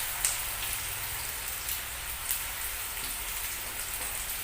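Sliced onions sizzling in hot coconut oil, a steady crackling hiss with a few sharper pops, just after being dropped into the oil to fry.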